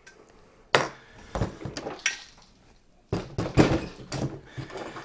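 Irregular metallic clinks and knocks of tools and 3D printer frame parts being handled during assembly, with a cluster of sharp knocks a second or so in and busier clattering over the last two seconds.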